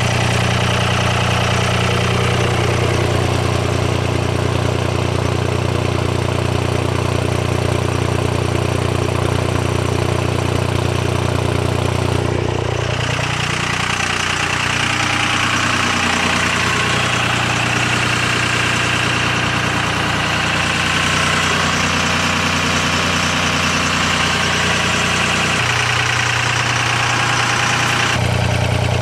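A 5.9 Cummins 24-valve inline-six turbodiesel idling steadily while still warming up after a cold start. It is heard at the tailpipe first, then from along the side of the truck from about twelve seconds in, where it sounds different.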